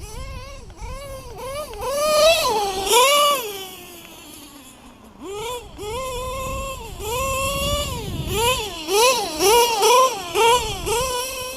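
LRP .32 nitro engine with a Novarossi race carb in an RC truggy, screaming at high revs as it is driven, its pitch rising and falling with the throttle. About halfway through it drops off and winds down, then picks up sharply and surges up and down several times near the end. The owner judges the high-speed needle to be set a bit too lean.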